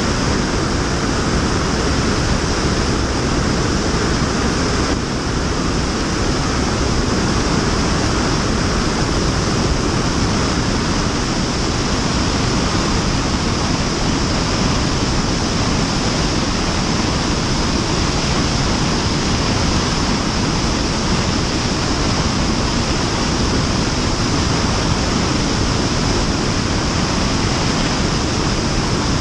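Loud, steady rush of airflow over an action camera mounted outside under the wing of a Cessna 172 Skyhawk in flight, dipping slightly about five seconds in.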